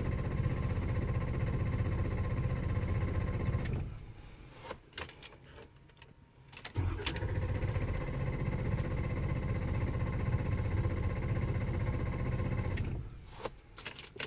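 2016 Ford F350's starter cranking the engine in two long attempts, about four seconds and then about six seconds, without the engine catching: the truck's intermittent no-start fault. Sharp clicks and key jangling come between and after the attempts.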